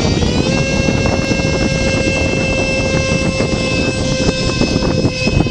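Radio-controlled model airplane's motor running at a steady, high-pitched whine, stepping up slightly in pitch about half a second in, with strong wind buffeting the microphone.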